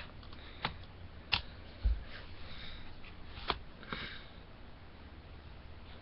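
A few light plastic clicks and taps from handling a toy car and track launcher, one dull thump about two seconds in, and faint sniffing.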